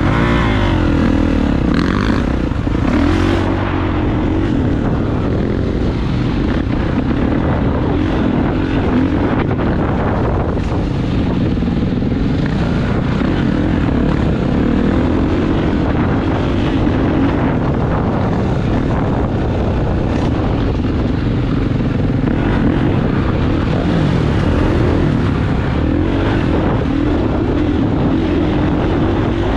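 Dirt bike engine running under load as the bike is ridden, its pitch rising and falling again and again with the throttle.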